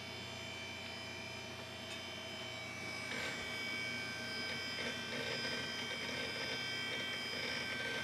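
Old Dell desktop computer running while it boots into Windows XP: a steady hum from its fans and hard drive, with several thin high whines. It gets a little louder and busier about three seconds in.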